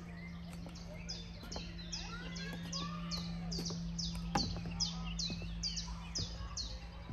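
A songbird singing a long, even series of short, high notes that each slide downward, about three a second, starting about a second in and stopping near the end, over a steady low hum.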